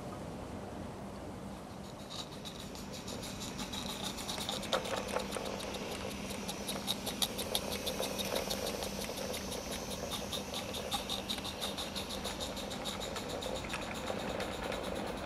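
Small live-steam garden locomotive, a Roundhouse Fowler, running with its freight train: a rapid, even ticking of about five beats a second over a soft hiss, starting about two seconds in.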